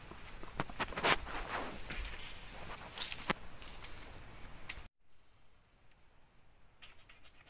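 Night insects keeping up a steady, shrill, high-pitched chorus, with a few sharp clicks or knocks, the loudest about a second in. About five seconds in, the sound cuts out for an instant and comes back much quieter.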